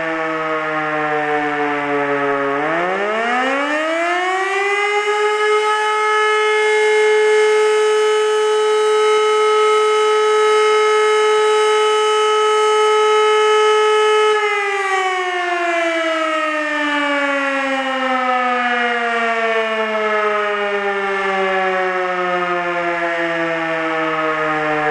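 E57 electric motor siren sounding a test alarm, heard close to its rotor. It is still winding down at first, spins up steeply about two and a half seconds in, and holds a steady tone for about twelve seconds. Then the motor is cut and the pitch falls away slowly as the rotor coasts down.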